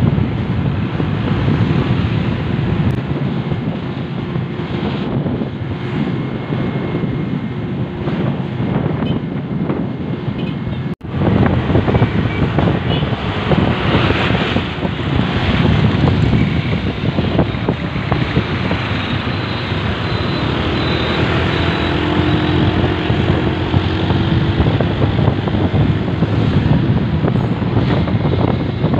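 Wind noise on the microphone of a moving motorbike, over road and traffic noise. The sound drops out for an instant about eleven seconds in.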